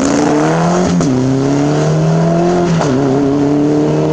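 Mitsubishi Lancer Evolution rally car's turbocharged four-cylinder engine accelerating hard away through the gears. Its pitch climbs steadily and drops sharply at two upshifts, about one second and nearly three seconds in.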